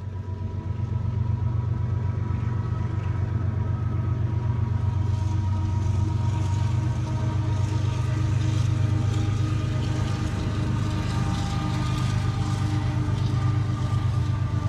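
BNSF diesel-electric locomotives hauling an intermodal train, their engines running in a steady low drone that grows louder about a second in. As the container cars follow, a steady rolling hiss joins the drone.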